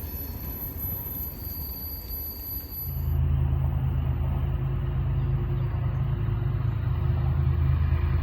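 Train rumbling past. About three seconds in it turns abruptly louder and deeper.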